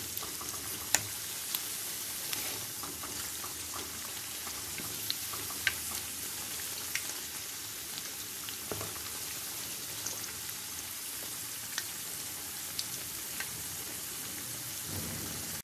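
Besan pakoras deep-frying in hot oil: a steady high sizzle with scattered sharp pops and crackles.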